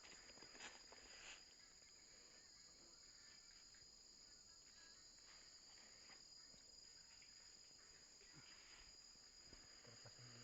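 Faint, steady, high-pitched chorus of insects, with a few soft clicks in the first second or so.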